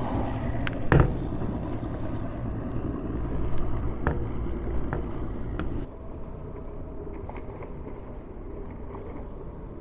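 Wind and choppy water noise on a small boat, with a loud knock and a few sharper clicks as the popped-open bow hatch lid is shut and its latch turned. About six seconds in, this gives way to a quieter, steady engine hum.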